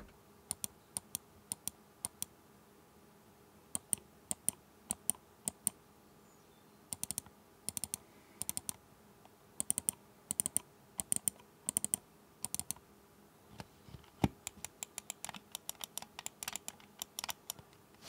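Keychron M3 gaming mouse's left and right main buttons (Kailh GM 8.0 micro switches) being clicked: sharp single clicks at first, then quicker runs of clicks.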